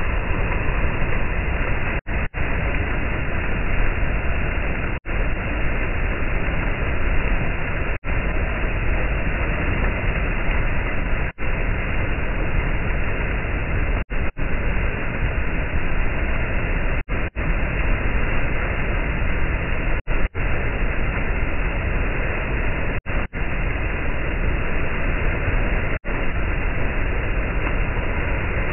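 Steady rushing of turbulent, churning floodwater, broken by very short dropouts to silence about every three seconds.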